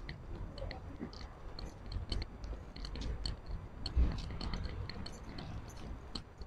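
Walking on pavement: irregular small clicks and scuffs of footsteps and of a wheeled shopping trolley being pulled along, over a low rumble.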